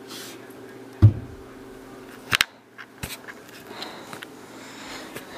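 A dull heavy thump about a second in, then a quick double knock a little over a second later and a lighter click, over a steady low hum.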